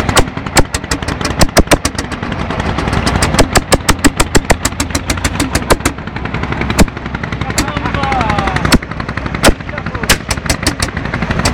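Landini hot-bulb (testacalda) single-cylinder two-stroke tractor engine working under load, pulling a mounted plough: a loud, uneven run of sharp exhaust bangs, a few per second, over a low engine hum.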